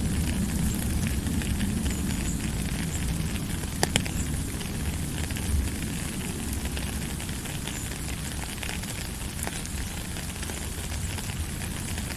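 Steady rushing noise with a low rumble and many small scattered crackles, and one sharp crack about four seconds in.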